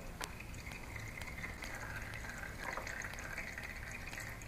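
Engine oil trickling steadily into a plastic drain pan while the engine drains for an oil change, with a few faint ticks.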